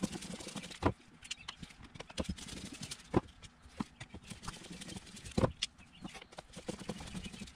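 Irregular clicks and taps of a screwdriver backing screws out of a plastic outboard carburetor fuel bowl, with the screws and tools being set down on the table. Three louder knocks stand out, about one, three and five and a half seconds in.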